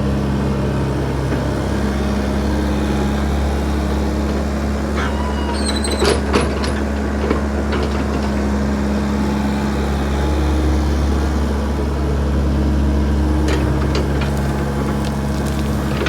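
Backhoe engine running steadily, with a few sharp knocks about six seconds in and again near the end.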